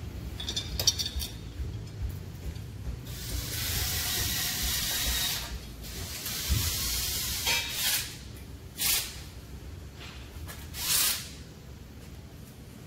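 A long hiss of rushing air about three seconds in, followed by several shorter hisses, over a steady low hum. A few sharp clicks come near the start.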